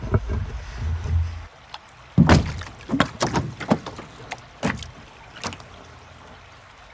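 Knocks and bumps as a man climbs into an Itiwit inflatable kayak from a wooden jetty and settles into the seat. There is a string of sharp knocks from about two seconds in, loudest at first and thinning out after about five seconds, following a low rumble.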